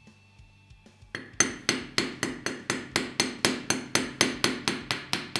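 Rapid, even tapping of the buffer, used as a hammer, on a pin punch, driving the retaining pin out of a WE M4 gas-blowback bolt carrier. About four to five strikes a second start about a second in, after a few faint taps.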